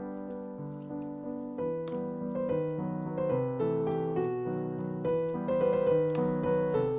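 Background piano music: a calm melody of sustained notes.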